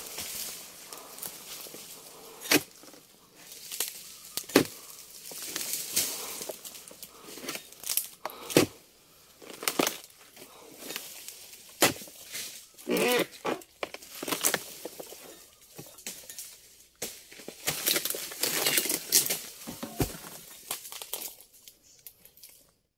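Oil palm harvesting chisel (dodos) striking and cutting into the fibrous frond bases of a low palm. Sharp knocks come at irregular intervals amid crackling and tearing.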